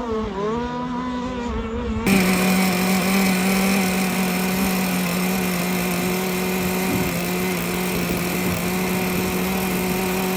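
Small motor running steadily at one constant pitch, starting suddenly about two seconds in after a short stretch of wavering, gliding tones.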